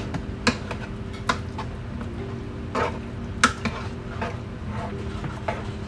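Slotted spoon stirring mashed potatoes in a metal pot, with irregular clinks and scrapes as it knocks the pot's rim and sides, over a steady low hum.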